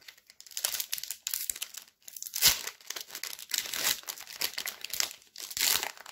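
Foil wrapper of a Pokémon trading card booster pack crinkling and tearing as it is worked open by hand, in irregular crackles, the loudest about two and a half seconds in.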